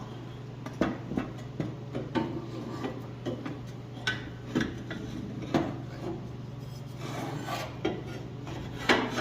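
Steel exhaust header being maneuvered into a car's engine bay: irregular metal clanks, clinks and scraping against the engine and chassis, the loudest knock near the end, over a steady low hum.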